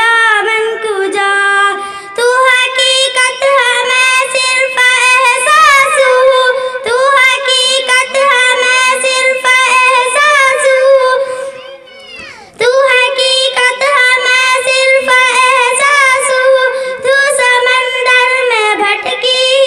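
A young girl singing a naat, an Urdu devotional song, solo into a microphone, holding long high notes with ornamented wavering. Her voice falls away briefly about twelve seconds in, then she sings on.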